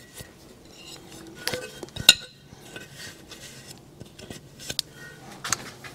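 Scattered light clicks and clinks of small metal parts and tools being handled on a workbench, a few sharper taps among them about a couple of seconds in.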